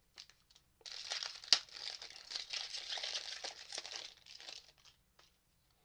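Foil wrapper of a Pokémon Fusion Strike booster pack crinkling as it is torn open, with one sharp crackle about a second and a half in. The crinkling dies away about five seconds in.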